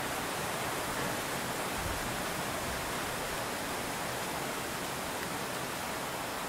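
A steady, even hiss with no distinct events, and a faint low bump about two seconds in.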